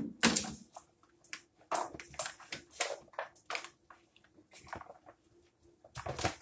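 Gloved hands kneading ground beef with chopped bell peppers and onions in a disposable aluminium foil pan: an irregular run of short squishing and crackling sounds, with a sharper knock at the very end.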